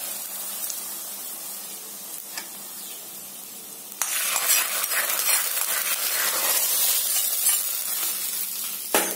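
Hot oil tempering sizzling as it is poured onto cooked, mashed greens; the sizzle turns suddenly louder and hissier about four seconds in. A single sharp knock near the end.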